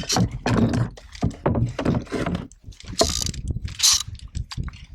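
Canoe and paddle sounds: irregular knocks against the hull with water splashing, two louder hissy splashes about three and four seconds in.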